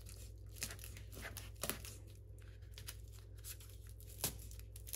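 Faint crackling of papery garlic skins as a kitchen knife cuts a whole garlic bulb down the middle on a plastic cutting board. The blade clicks sharply against the board a few times.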